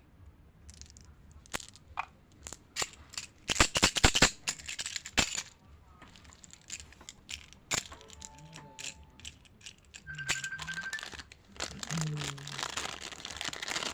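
Wrapped candies and chocolates clicking and clattering against each other as they are handled, in a quick run of sharp knocks about two to five seconds in, then plastic wrappers crinkling in the last few seconds.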